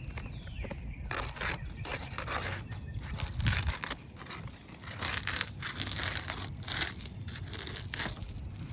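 Asphalt roof shingle being pulled and worked loose by hand, scraping and tearing free in repeated short bursts.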